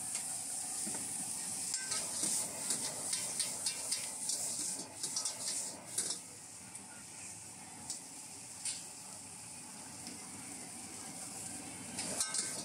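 Food sizzling in a hot wok, with a metal spatula scraping and knocking against the pan in quick strokes during stir-frying. The strokes come thick and fast in the first half, ease off to a steady sizzle in the middle, and pick up again near the end.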